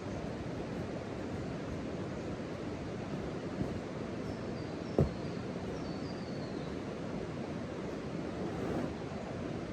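Steady rushing outdoor noise, with one sharp click about five seconds in and a few faint high chirps stepping down in pitch around the middle.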